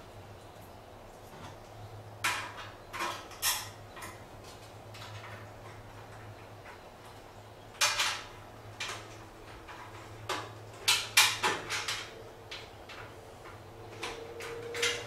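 Scattered clicks and knocks of hands handling the sheet-metal wiring box and flexible conduit under a ceiling-mounted electric garage heater, coming in small clusters over a steady low hum.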